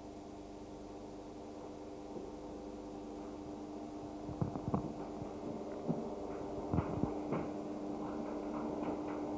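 A steady machine or electrical hum, several even tones together, growing slightly louder. From about four seconds in, a few soft knocks and clicks are heard over it.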